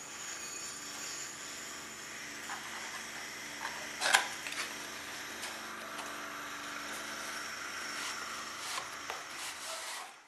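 Cardboard box of a new paraffin-heater wick being handled and opened, with light clicks and rustles and one sharp knock about four seconds in, over a steady hiss and low hum that cut off abruptly near the end.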